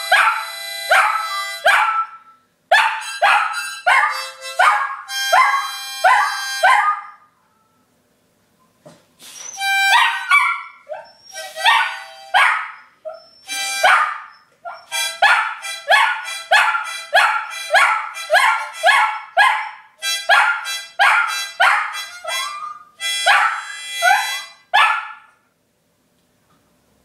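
A harmonica played in short repeated notes, with a shih tzu howling along in pitched, sliding cries. There is a pause about eight seconds in.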